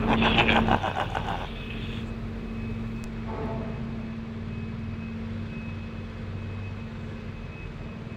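Motorcycle engine running steadily at low speed, with a burst of rapid rattling in the first second and a half.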